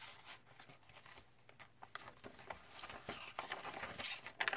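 Soft paper rustling and light taps as a handmade junk journal's cardstock pages and paper tags are handled and turned, getting busier near the end.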